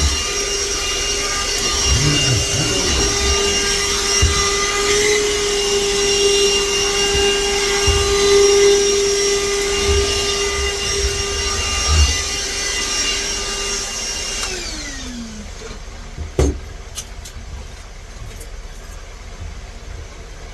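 Shop vacuum running steadily, sucking up spilled lock pins, with the nozzle knocking now and then. About fourteen seconds in it is switched off and the motor winds down with a falling whine, followed by a single sharp knock.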